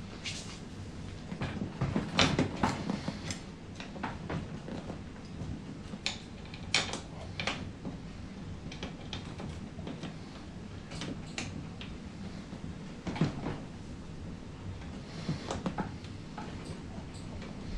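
Scattered clicks, knocks and handling noises from hands working on a car seat, with the loudest knocks about two seconds in and again about thirteen seconds in.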